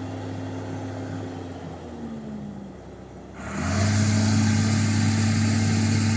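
Excavator engine running steadily, easing off briefly around the middle. About three and a half seconds in it turns sharply louder and harsher, then holds at that level as the machine works.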